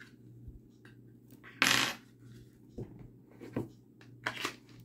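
Star Model S pistol being pushed into a Cytac MegaFit polymer holster: small clicks and scrapes of metal on plastic, with a short loud scrape about two seconds in and another near the end. The fit is tight and the holster's retention has not yet locked.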